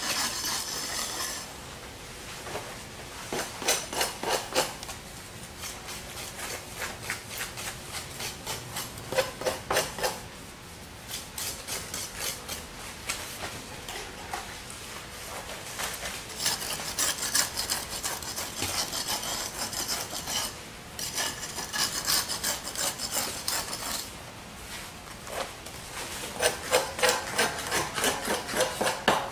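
Hand tool scraping and rubbing wet premix concrete against the mold and frame rails. It comes in spells of quick, repeated strokes a few seconds long, with quieter pauses between them.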